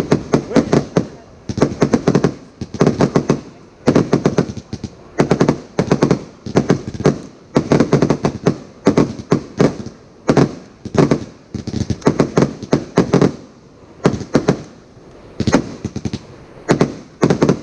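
Consumer fireworks finale firing: clusters of rapid, sharp bangs and cracks, one volley about every second, with brief lulls between volleys.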